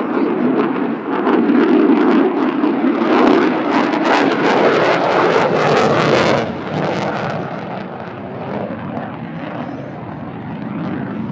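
F-35A Lightning II's Pratt & Whitney F135 jet engine in afterburner on a demo pass: a loud jet roar with a ragged crackle. The roar drops noticeably in level about six and a half seconds in and carries on more weakly.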